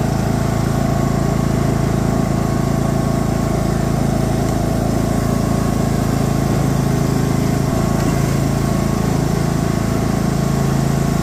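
Cub Cadet XT1 riding lawn tractor's EX1900 engine running steadily as the tractor drives along, an even drone. Its pitch drops slightly near the end.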